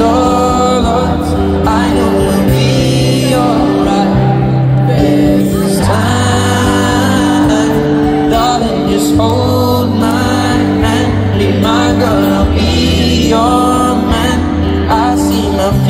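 Live acoustic-guitar song played through an arena sound system, with a sung melody over a low bass line.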